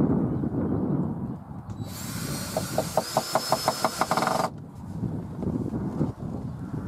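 Cordless drill running in one burst of about two and a half seconds, starting about two seconds in, with a rapid regular clicking of about six a second during its second half, then stopping abruptly.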